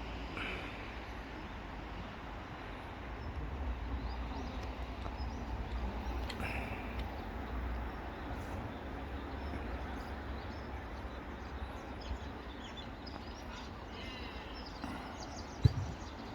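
Outdoor ambience at an amateur football pitch: a steady low rumble with faint distant calls about half a second in and again around six seconds in, and one sharp thump near the end.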